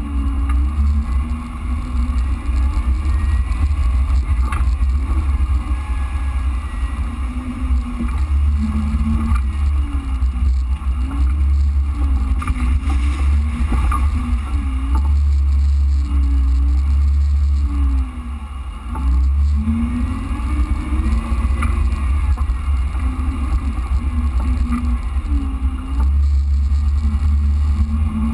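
Off-road vehicle engine running at low trail speed, its pitch rising and falling again and again as the throttle changes, under a heavy low rumble on the microphone. The sound drops briefly about two-thirds of the way through.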